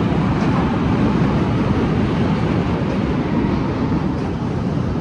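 Wind buffeting the microphone: a loud, rough rumble of noise, flickering quickly.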